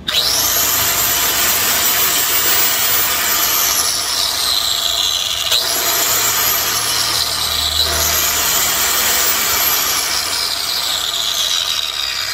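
Total marble cutter's electric motor running with no load, its diamond disc spinning free: a high whine that climbs fast as it is switched on, then slowly sinks as it winds down. It is triggered again twice, about five and a half and eight seconds in, each time whining back up before sinking away near the end.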